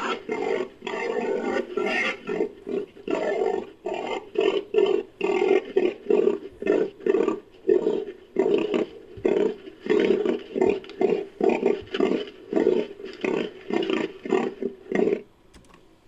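Designed creature vocalization for a fictional animal: a rapid string of short, choppy roar-like calls, mostly two or three a second, made from edited bull and Hercules beetle recordings.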